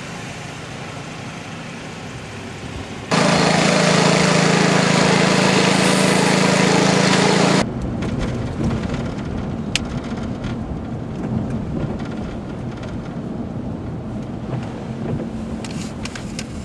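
Storm noise: a steady rumble with a low hum. About three seconds in, a much louder steady rush of noise cuts in and stops abruptly some four seconds later. Scattered crackling and ticking follow.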